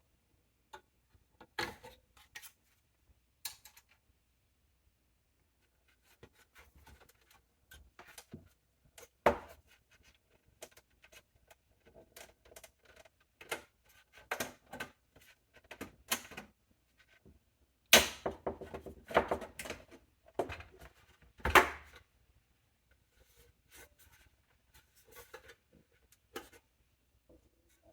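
Small form factor desktop PC case being opened by hand: scattered clicks, knocks and scrapes of metal and plastic parts being handled, with the loudest clatters about 9 seconds in and from about 18 to 22 seconds.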